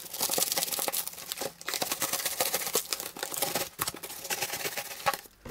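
Plastic stretch wrap and packing tape on a cardboard parcel crinkling and tearing as they are cut and pulled open with a knife: a dense run of crackles and small clicks, dropping away briefly near the end.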